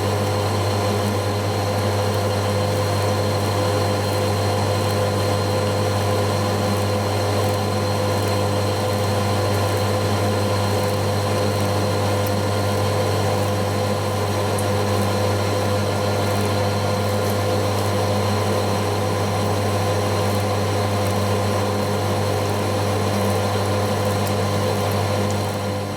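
Metal lathe running steadily while turning a steel drive shaft, with a constant low hum and a steady whine. The cut is going smoothly, without chatter.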